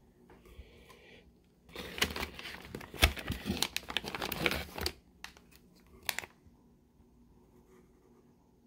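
Plastic fish bags and packing crinkling and rustling as they are handled. It is a dense crackle for about three seconds starting around two seconds in, followed by a couple of short rustles.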